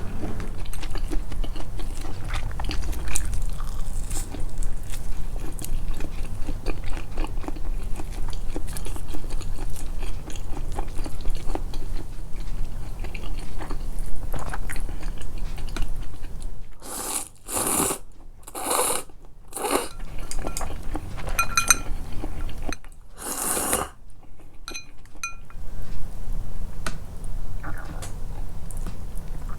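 Close-miked chewing and biting of food, with crunching. Wet mouth clicks run steadily at first, then several louder noisy bursts come in the second half.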